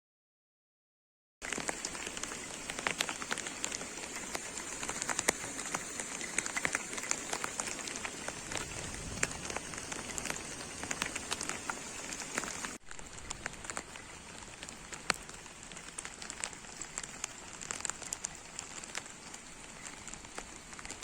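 Rain pattering, dense irregular drops over a steady high hiss. It starts after about a second and a half of silence and is a little quieter in the last third.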